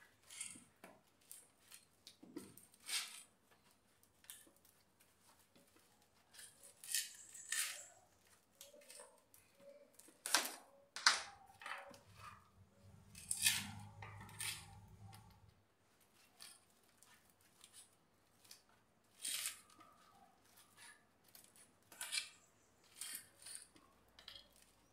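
A blade cutting away the bottom of a black plastic nursery pot to free the root ball: scattered short scraping, snipping strokes, irregular and faint, with a low rumble lasting a few seconds about halfway through.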